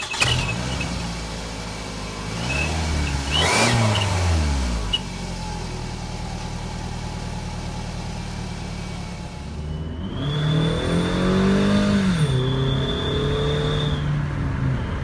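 A Toyota Camry's 2AZ-FE four-cylinder engine revved twice from idle, each rev rising and falling in pitch. An exhaust-pipe turbo whistle gives a steady high whistle for about four seconds during and after the second rev, about ten seconds in.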